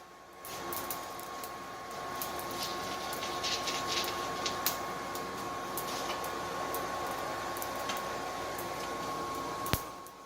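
Blow dryer serving as a charcoal forge's blower, running steadily with a thin, constant whine over the rush of air. Small, scattered clicks sound over it. It comes in about half a second in.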